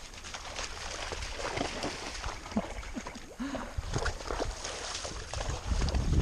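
Two horses wading through shallow, muddy creek water, their legs splashing and sloshing irregularly with each step.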